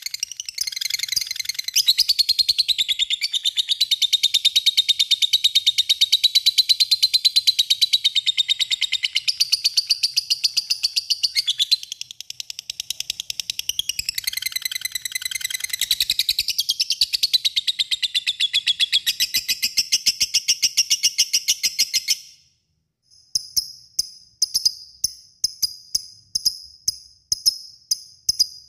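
Lovebird giving a long, rapid, high-pitched chattering trill (the 'ngekek panjang' song), unbroken for about twenty seconds apart from a brief dip near the middle. It breaks off and turns to a string of short, sharp chirps at about two or three a second.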